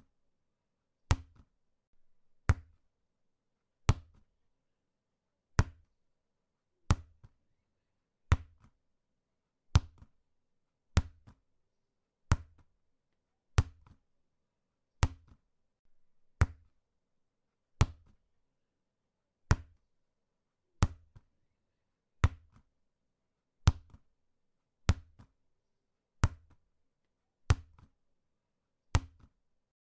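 A ball being kicked over and over: each kick is a sharp thud with a deep low component, about one every one and a half seconds, with silence between.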